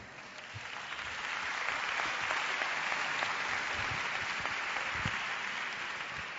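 Audience applauding, building up over the first couple of seconds, holding steady, then dying away near the end.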